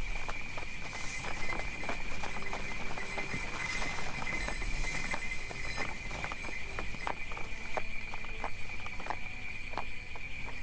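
Horse hooves clopping, about two to three knocks a second, over a steady jingle of sleigh bells.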